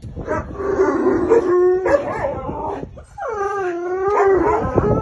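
A dog howling in long, wavering calls: two main howls about a second and a half each, with shorter cries between them.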